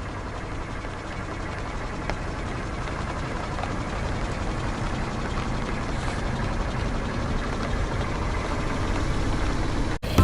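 Car engine running with a steady low rumble that grows gradually louder, as the car comes closer.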